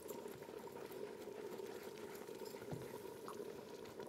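A pot of harira soup bubbling steadily on the stove, with a few faint light clicks.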